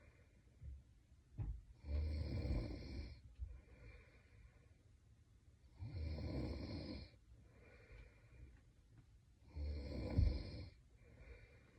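A sleeping young woman snoring in a steady rhythm: three loud snores about four seconds apart, each about a second long, with softer breaths between them.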